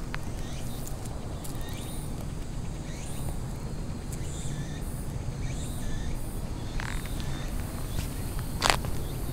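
Outdoor ambience: a steady low rumble with faint, scattered high chirps and a sharp click near the end.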